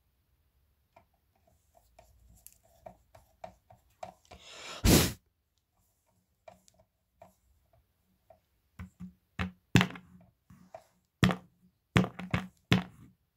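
Clicks and knocks of hands and tools handling a small speaker being taken apart, with a louder thump about five seconds in and a quicker run of sharp clicks near the end.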